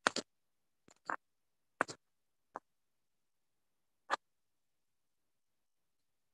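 About eight short, sharp clicks and taps at irregular intervals in the first four seconds or so, with dead silence between them, heard over a Zoom call.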